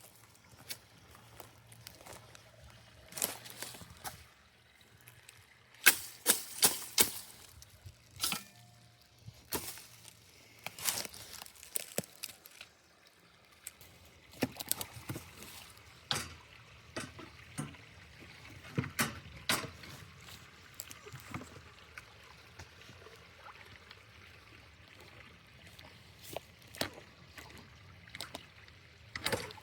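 Water trickling and pouring, broken by many irregular sharp splashes and knocks.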